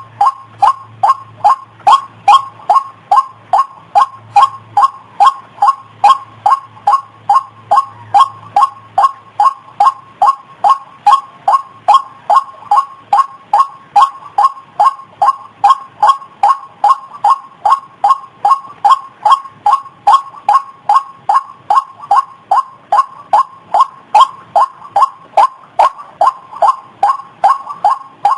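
White-breasted waterhen (ruak-ruak) calling: the same short note repeated steadily and without a break, about two notes a second.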